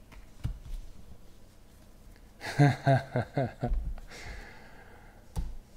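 A man's voice in a few short unworded syllables about halfway through, then a breathy exhale, over light clicks and taps of trading cards being flipped and set down on a stack.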